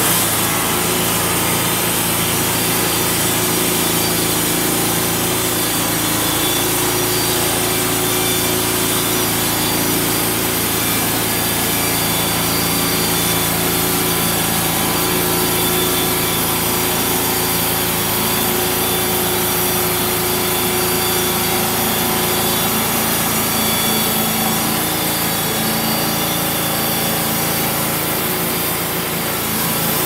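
Homemade bandsaw sawmill cutting through a spruce log: its petrol engine runs steadily under load while the band blade saws through the wood with a steady, even rasp.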